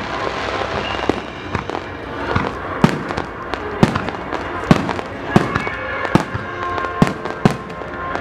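Aerial firework shells bursting in a rapid starmine barrage: about a dozen sharp bangs, one or two a second, over a continuous rumbling din, with music playing underneath.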